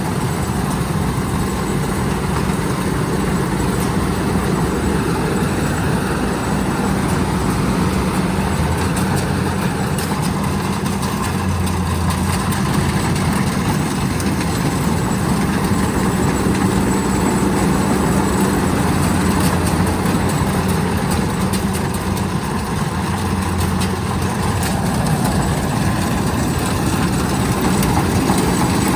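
Rice combine harvester's diesel engine running steadily, with a constant low hum and mechanical clatter.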